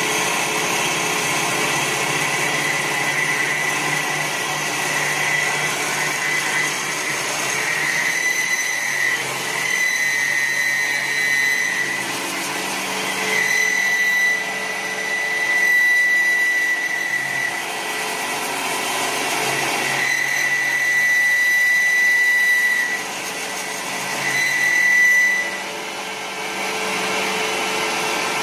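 CNC wood lathe cutting a spinning wooden spindle: a steady machine hiss and hum, with a high whine that swells and fades several times as the cutter works along the wood.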